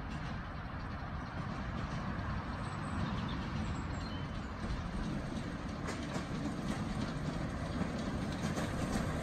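Miniature steam locomotive on a garden railway hauling passenger carriages, its running and the carriages' wheels on the track growing gradually louder as it approaches.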